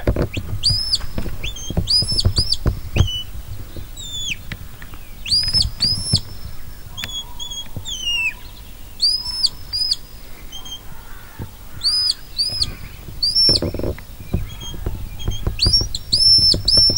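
Shepherd's whistle commands to a working sheepdog: short high notes that rise, hold level and drop, given in quick groups of two or three and repeated every few seconds.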